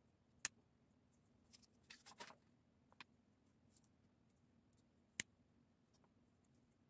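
Plastic Lego bricks clicking as they are pressed together by hand. Two sharp, loud snaps come about half a second in and just after five seconds, with a short run of small clicks and rattles around two seconds in and a few faint ticks in between.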